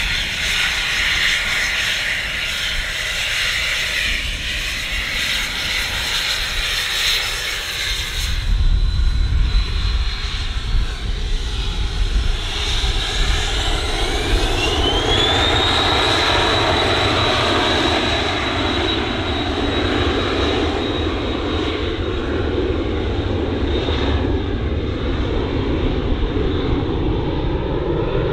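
Embraer Phenom 300's twin turbofan engines running with a hissing whine. About eight seconds in the sound changes abruptly to a deeper rumble. A few seconds later a whine rises in pitch and holds high as the engines spool up to take-off thrust.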